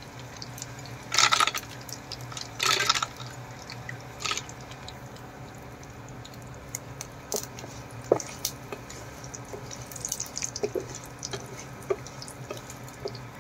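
Cashew nuts going into hot oil with cumin seeds and curry leaves in a nonstick pan and frying: a few short louder rushes of sizzle in the first four seconds as the nuts are tipped in, then a steady light sizzle with scattered small pops and crackles.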